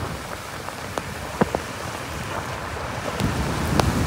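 Wind rushing over the microphone and tyre noise on a wet road from a moving vehicle, with a few sharp ticks, growing louder and heavier toward the end.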